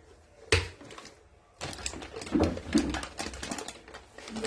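Objects being handled and set down: one sharp knock about half a second in, then a run of quick clicks and clatter.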